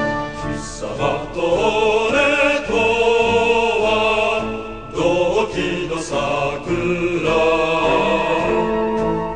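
A Japanese military song (gunka) sung by a choir with wavering, held notes over instrumental accompaniment.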